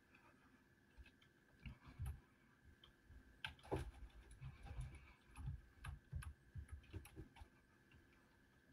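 Faint computer keyboard typing and mouse clicks: irregular light taps, busiest around the middle, over a faint steady high whine.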